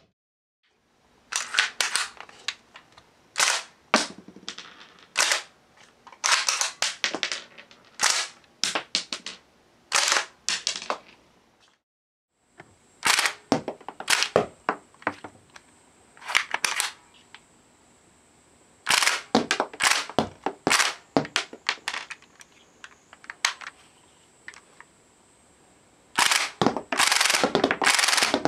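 Marushin gas-operated UZI airsoft submachine gun firing its plastic cartridges in many short bursts of rapid shots, its blowback bolt clacking with each shot, with a longer burst near the end.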